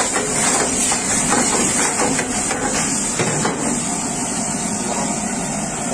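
Steel ladle knocking and scraping against a steel frying pan several times in the first half, over the steady rushing hiss of a gas burner under the hot pan.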